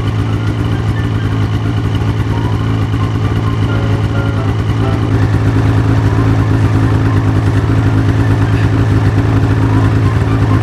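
Snowmobile engine idling steadily, getting slightly louder about halfway through.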